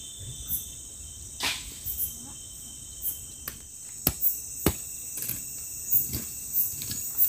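Night chorus of crickets and other insects, a steady high-pitched trill. Over it, a scattering of sharp clicks and knocks that come more often from about four seconds in.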